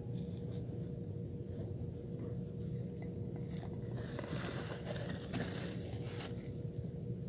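Hands scraping and rustling while handling a plastic rodent bait station and its bait, over a steady low hum. The rustling gets denser past the middle.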